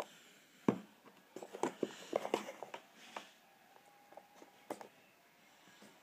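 Wooden cigar-box puzzle box knocking and clattering on a wooden table as it is turned over and set down by hand. There is one sharp knock a little under a second in, a flurry of knocks and taps over the next couple of seconds, and a single knock near the end.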